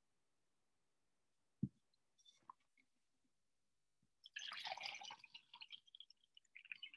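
Near silence on a video call, broken by a single soft knock about one and a half seconds in and a brief crackly rustle a little past the middle, then a few faint clicks.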